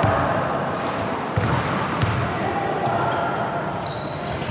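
Basketball game in a sports hall: a ball bouncing on the court, with two sharp thuds about a second and a half and two seconds in. Voices in the hall and a few short high squeaks near the end.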